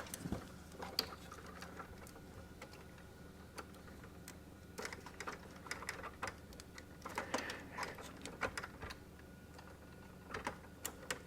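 Faint, irregular small clicks and rustles of plastic cable connectors being handled and pushed into place as data-line connectors are refitted to a thermal label printer's printhead, over a faint steady hum.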